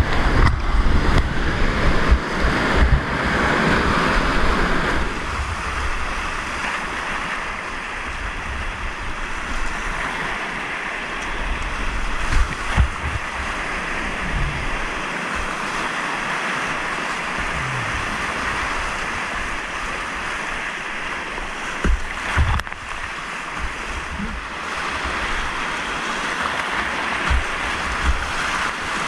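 Whitewater rapids rushing around a kayak, loudest in the first few seconds through the heaviest water and then steadier, with low buffeting thumps on the microphone.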